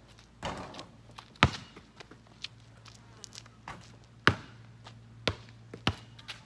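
Basketball bouncing on a concrete backyard court: a handful of sharp thuds a second or more apart, the loudest about a second and a half in and again about four seconds in.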